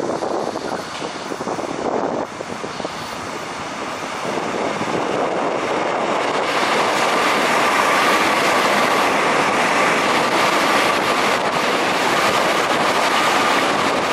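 Seoul Metro Line 1 rheostatic-control electric train passing close by: its wheel and running noise grows louder over the first several seconds, and a steady whine joins in about six seconds in.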